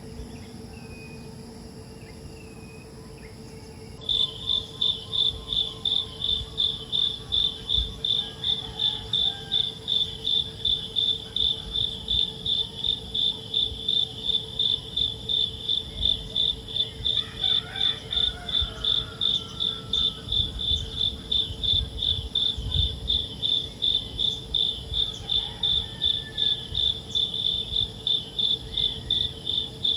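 Insect chirping in a steady, fast pulsed rhythm, a high-pitched chirp about three times a second that starts about four seconds in, over a faint steady lower tone.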